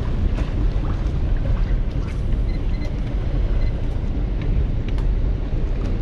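Wind rumbling on the microphone over the wash of the sea around a small wooden fishing boat, steady throughout, with a few faint clicks.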